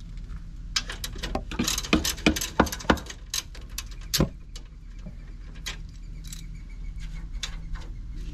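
Hand tools clicking and clinking against metal as a small bolt is worked loose from an A/C condenser line fitting with a socket and ratchet. The clicks are irregular, thickest from about one to four seconds in, then sparser.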